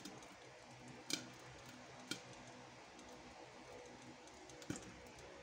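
Popcorn kernels popping now and then inside a covered pot with a glass lid: a few sharp, separate pops over a faint steady background, a sign the batch is still popping and not yet done.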